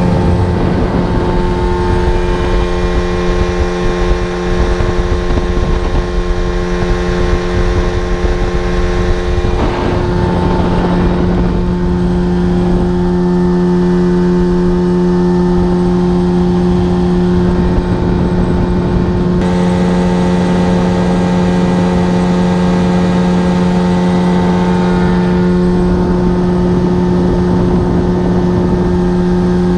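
Mercury 30 hp two-stroke outboard motor running at a steady speed with the boat under way, its pitch holding level apart from a brief break about ten seconds in.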